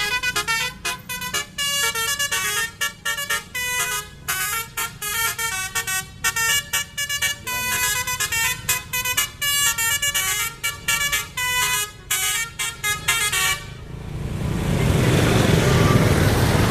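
A bus's 'telolet basuri' multi-tone musical horn plays a fast tune of short notes that jump in pitch. About fourteen seconds in it cuts off and a loud rushing noise takes over.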